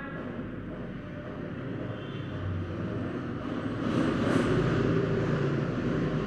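A steady rumbling noise with a hiss, swelling louder about four seconds in.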